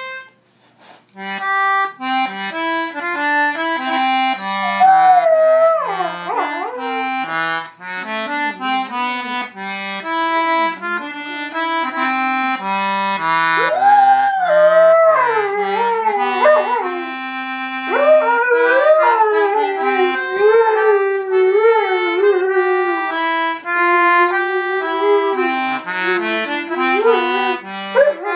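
Tedrow baritone C/G concertina playing a tune in a low register, with a dog howling along from about five seconds in, its wavering howls rising and falling over the notes.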